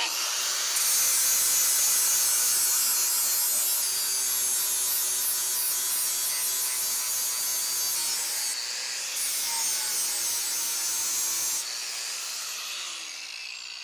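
DeWalt grinder grinding steel off the jaw seat of a cast bench vise: a steady, loud grinding hiss over the motor's whine. About three-quarters of the way through the grinding stops and the motor winds down, its whine falling in pitch.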